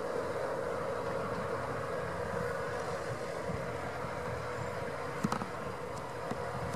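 McCormick MC105 tractor's diesel engine running steadily as it pulls a hay tedder through the field, with one short sharp click about five seconds in.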